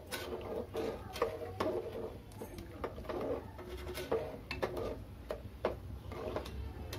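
Metal ladle stirring a thin coconut-milk masala in an aluminium pressure cooker: irregular light clicks and scrapes of the ladle against the pot, with the liquid swishing.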